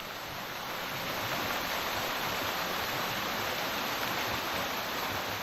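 Small waterfall rushing steadily: an even, unbroken wash of falling water.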